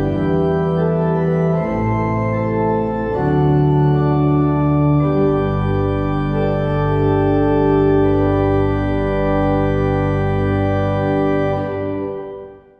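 Church pipe organ playing the closing chords of a hymn: slow, sustained chord changes, then a long final chord held over a deep pedal bass note. It fades away near the end.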